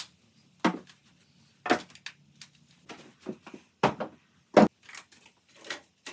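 A series of short, separate knocks and clatters as small cosmetics and objects are picked up and set down on a vanity table, about eight in all, the loudest about two-thirds of the way through.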